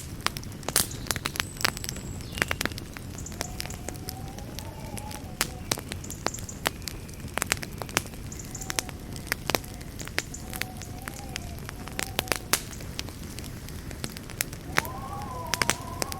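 Wood campfire burning: a steady low rumble of flames with frequent sharp crackles and pops, and a thin wavering whistle that comes and goes, strongest near the end.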